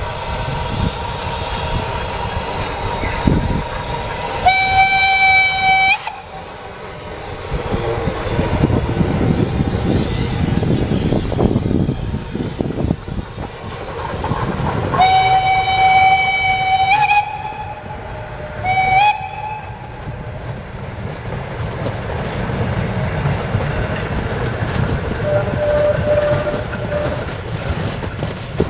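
Narrow-gauge steam locomotive running with its train, sounding its whistle three times: a long blast, then a longer one a few seconds later and a short one just after, over the steady rumble and rail noise of the moving train.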